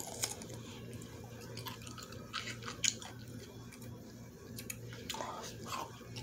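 A person chewing a sour pickle close to the microphone: scattered short, wet crunches and mouth clicks, over a steady low hum.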